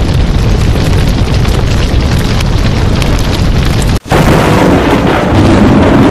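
Loud, dense rumbling sound effect of an animated channel intro, with no clear tune. It drops out for an instant about four seconds in, then comes straight back.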